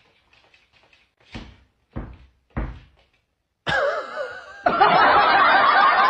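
Three dull thumps about half a second apart, then from about the middle a loud burst of many overlapping laughing voices that grows louder near the end.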